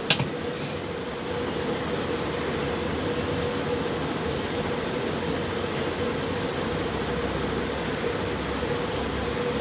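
Steady room hum: an even hiss with one constant mid-pitched tone, like an electric appliance running, with a single click right at the start.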